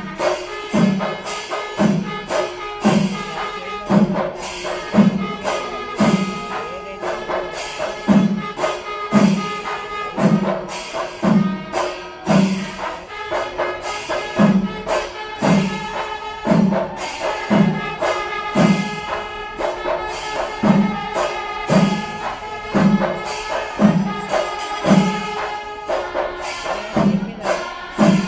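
Kerala temple percussion ensemble playing, with a deep drum stroke about once a second under fast jingling cymbal strokes and held pitched notes from wind instruments.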